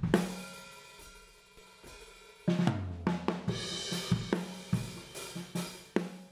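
Recorded drum kit with cymbals, hi-hat, snare and bass drum: a loud cymbal-heavy hit at the start rings away for about two seconds, then the beat comes back in about two and a half seconds in. The later part is run through an MXR Dyna Comp compressor pedal, which holds the hits and cymbal wash up at a more even level.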